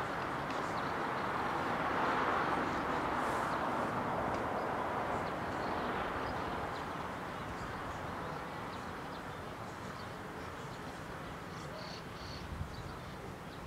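A distant outdoor rushing noise that swells about two seconds in and then slowly fades, with faint, scattered high chirps over it.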